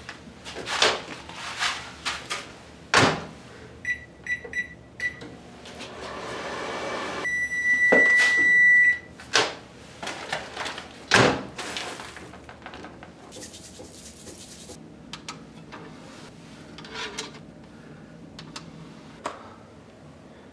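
Microwave oven being used: door clunks, four short keypad beeps, a short stretch of the oven running, then one long beep as it finishes, followed by the loud clunk of the door being opened. Only faint handling sounds follow.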